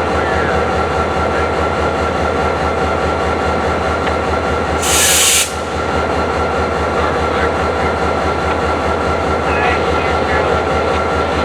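CSX local freight train rolling steadily through a grade crossing, its wheels running on the rails. A short burst of hiss cuts in about five seconds in.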